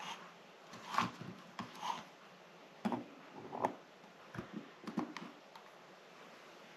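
Needle-nose pliers and a piston ring clicking and scraping against a Wiseco piston as the ring is worked down over the piston into its groove: a scatter of light clicks over the first five seconds.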